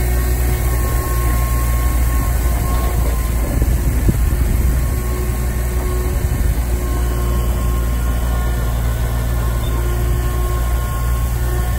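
Water tanker truck running steadily while its rear spray bar sprays water, a constant engine hum with a faint steady whine under the hiss of the spray.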